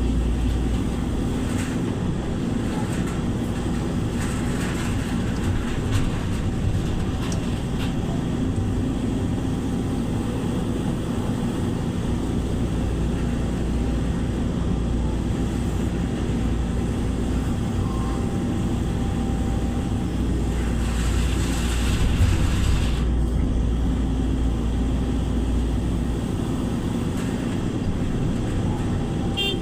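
A vehicle engine running steadily: a continuous low rumble with a steady hum and no clear changes in speed.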